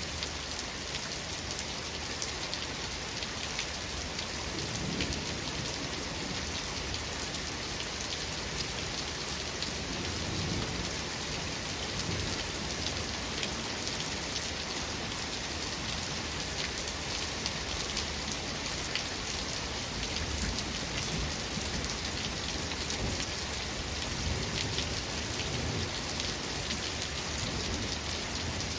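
Steady rain falling, with low, soft rumbles of thunder swelling up several times.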